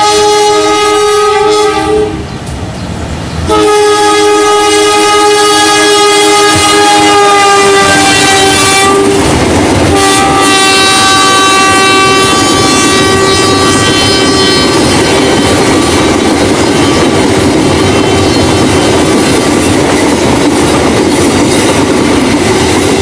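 CC 201 diesel locomotive's air horn blowing long blasts, with a short break about two seconds in; the pitch sags slightly as the locomotive passes. Through the second half, the wheels of a string of tank wagons clatter over the rail joints as they roll by.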